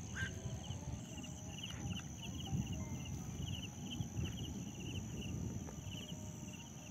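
Insects chirping in a quick, even rhythm of about three chirps a second, over a continuous high-pitched buzz and a low rumble.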